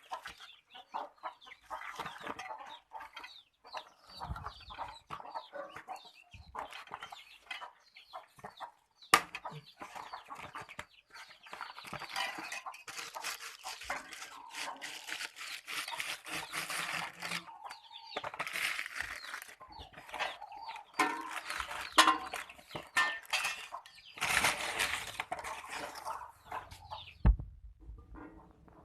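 Chickens clucking, a busy run of short calls throughout.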